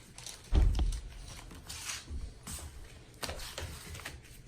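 Baseball cards handled and slid off one another one after another, with short papery clicks and rustles, and a dull thump about half a second in.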